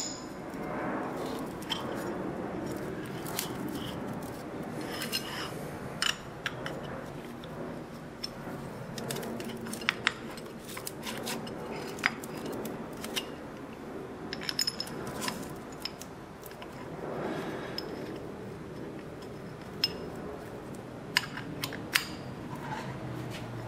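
Irregular light metallic clinks, taps and scrapes as a thin multi-layer steel head gasket and aluminium fixture plates are handled and set down on a steel mill table.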